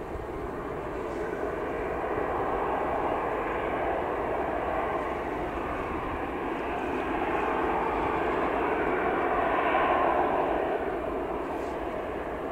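Jet engines of a Boeing 787 widebody at taxi power as the airliner taxies by: a steady jet noise that swells to its loudest about ten seconds in, then eases a little.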